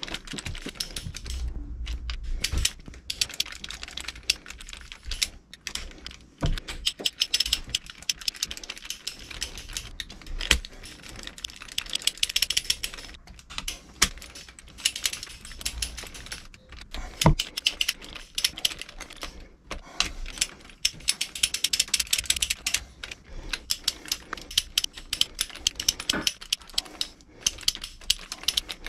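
Ratchet of a torque wrench clicking rapidly in bursts as the valve cover bolts on a Rotax engine are run down and tightened, with short pauses between bursts. A few sharper single clicks stand out.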